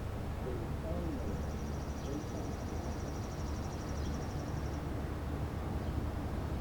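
Outdoor background with a steady low rumble while the siren's voice message is silent. From about a second in, a fast, evenly pulsed high-pitched trill runs for about three and a half seconds.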